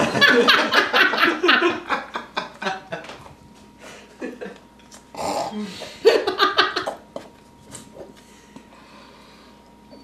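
People laughing in bursts, a long one at the start and another about six seconds in, with someone chewing a baked squid chip in the quieter stretches between.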